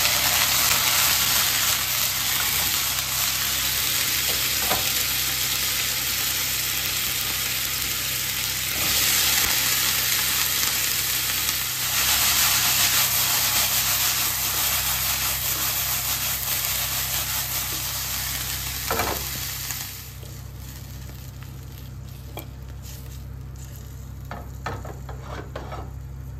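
Broccoli sizzling loudly as it is stirred and tossed in a hot stainless-steel frying pan. The sizzle drops to a quieter hiss about twenty seconds in, followed by a few light clicks.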